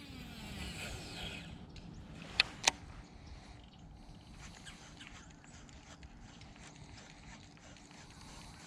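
Baitcasting reel spool spinning out on a cast: a whir that falls in pitch over about two seconds. Two sharp clicks follow, about two and a half seconds in, then a faint steady hum with light ticking.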